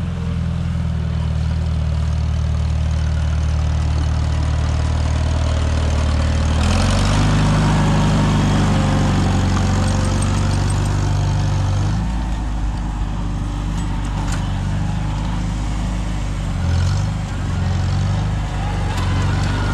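Tractor engine running steadily while pulling a plow through the soil. About six and a half seconds in its note shifts and grows a little louder, then changes again around twelve seconds.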